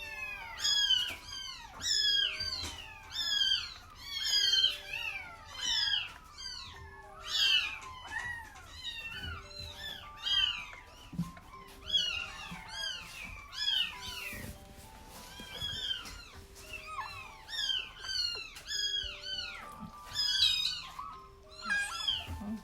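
Several kittens about a week old mewing over and over, short high-pitched cries one to two a second, often overlapping. Soft background music with held notes plays underneath.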